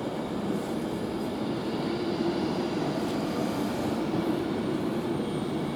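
Passenger train moving past along the platform: a steady rumble of wheels and running gear with a faint steady hum.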